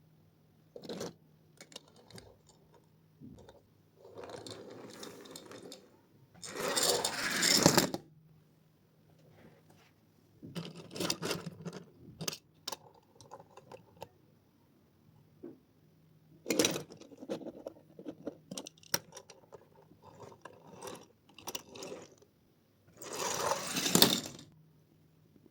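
Toy cars being handled and played with: irregular small plastic and metal clicks, knocks and scrapes, with two longer, louder scraping passes, one about a third of the way in and one near the end.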